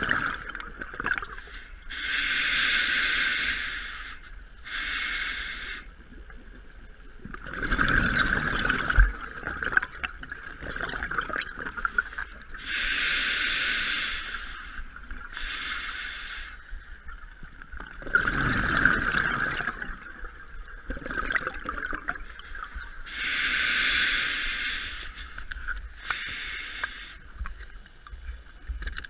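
A scuba diver breathing through a regulator underwater: slow breaths about every ten seconds, each a hissing inhale followed by a low, bubbling exhale.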